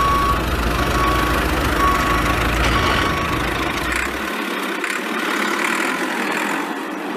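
Vehicle engine running steadily with a low rumble, joined by four short high beeps about a second apart. The deep rumble drops away about four seconds in, leaving a steadier, thinner engine noise.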